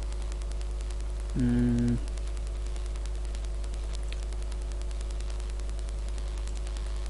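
Steady low electrical hum with hiss, the mains hum picked up by the recording microphone. About a second and a half in, a short held 'umm' from a man's voice.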